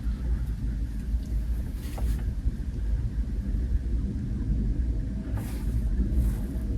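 Wind buffeting the microphone: a low, fluctuating rumble with faint gusty hiss now and then.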